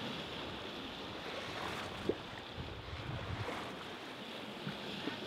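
Sea water washing and splashing along the hulls of a sailing catamaran under way, with wind on the microphone and a short knock about two seconds in.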